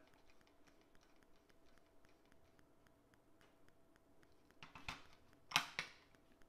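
A Blu-ray disc being worked off the plastic hub of a steelbook's disc tray: faint handling ticks, then a cluster of sharp plastic clicks and scrapes about five seconds in as the disc releases.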